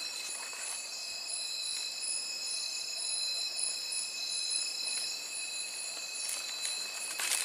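Chorus of night insects: several steady, high, unbroken tones layered together. A few footsteps near the end.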